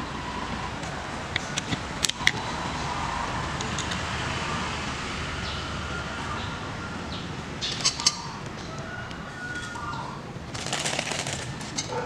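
Vegetable soup simmering in an electric pot, a steady bubbling hiss, with a few sharp clicks and a rustling clatter about eleven seconds in as thin noodles are dropped into the broth.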